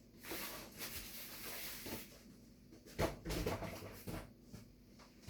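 Cardboard packaging lid being worked off a boxed washing machine: scraping and rustling, then a cluster of knocks and bumps about three seconds in.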